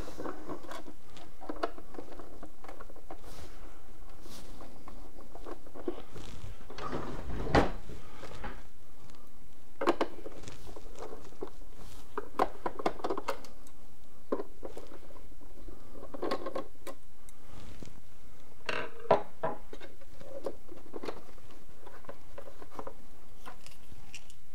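Hand screwdriver working screws out of the plastic case of a CyberPower UPS: scattered small clicks, scrapes and knocks as the case is handled, the loudest a few seconds apart, over a steady low hum.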